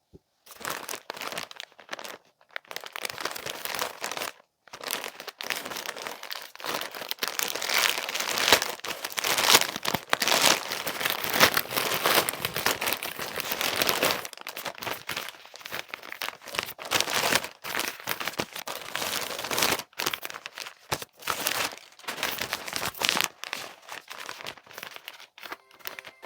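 Packaging being opened by hand: crinkling and crumpling with some tearing, in irregular spurts broken by short pauses.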